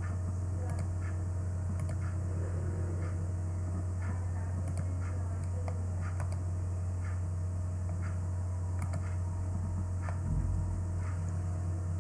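Steady low electrical hum on the microphone line, with faint scattered clicks and a soft low thump just after ten seconds.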